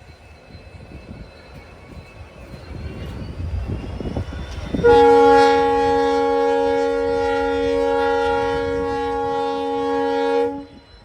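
A train's rumble grows louder, then about five seconds in the locomotive's horn sounds one long, steady blast of about six seconds and cuts off sharply near the end.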